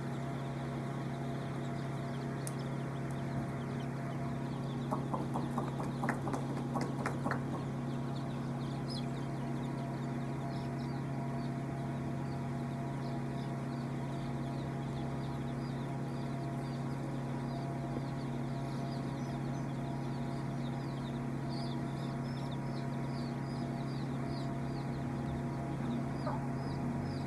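A large flock of young chicks peeping, many short high cheeps overlapping without a break, over a steady low hum. A few sharp clicks come about five to seven seconds in.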